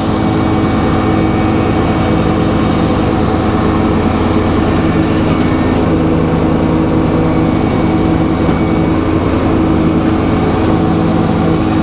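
Sawmill running steadily at an even pitch, its motor and blade turning without load between cuts.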